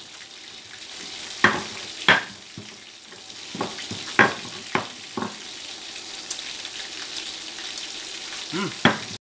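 Stone pestle knocking and grinding against a stone mortar (cobek and ulekan) as chili sambal is pounded, with several sharp, irregular knocks in the first five seconds. Under it runs a steady sizzle of chicken frying in oil.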